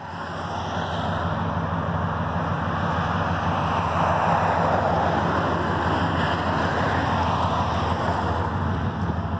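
Pickup truck engine idling, a steady low rumble that holds evenly throughout.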